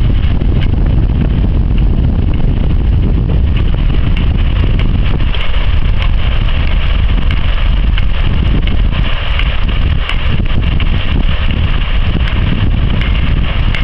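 Wind buffeting the microphone: a loud, steady low rumble with a hiss over it.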